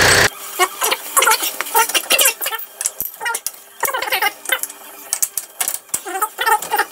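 The Toyota D-4D diesel engine idling, cut off abruptly a moment in. Then irregular metallic clicks and clinks of hand tools on steel as a bolt on the front hub and suspension is tightened.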